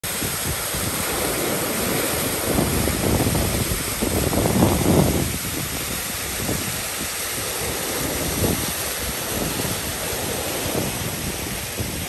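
Rushing, splashing water from a small waterfall pouring onto rocks and ocean surf churning into a rocky pool: a steady hiss. Wind gusts on the microphone add low buffeting, loudest about four to five seconds in.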